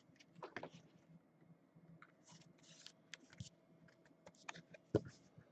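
Faint handling noise of a trading card in a clear plastic holder: small scattered clicks and rustles of plastic, with one sharper click near the end.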